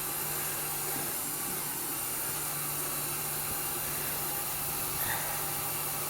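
Roomba Discovery 400-series robot vacuum cleaning low-pile carpet: a steady hissing whir with a low motor hum underneath, and a brief knock about five seconds in.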